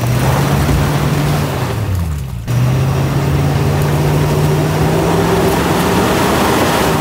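Ford pickup truck's engine revving hard under load as it tries to haul a boat trailer up a muddy slope, with the wheels spinning and not gaining grip. The revs drop off briefly about two and a half seconds in, then climb again and hold high.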